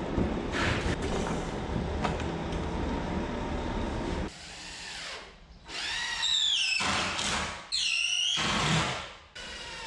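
A steady low rumble, then a power drill driving screws into plywood wall sheathing: two short runs of motor whine, each dropping in pitch as the screw drives in.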